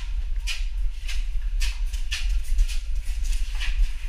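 A person crawling through a concrete pipe: rhythmic scrapes and scuffs of hands and knees on the concrete, about two a second, over a steady low rumble.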